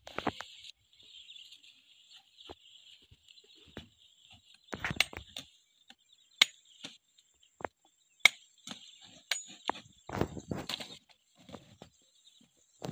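Scattered sharp knocks and cracks of a machete chopping and cassava stems snapping, with leaves rustling in between, over a steady high buzz of insects.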